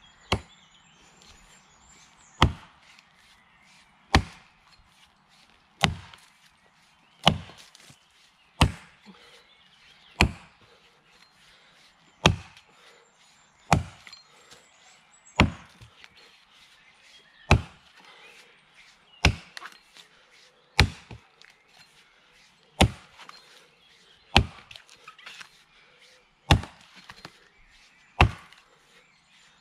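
Axe chopping into the trunk of a standing tree: a steady series of hard, sharp blows, one about every one and a half to two seconds.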